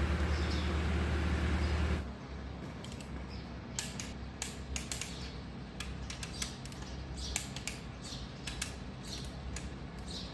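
A steady low mechanical hum that cuts off abruptly about two seconds in, followed by scattered light clicks and taps.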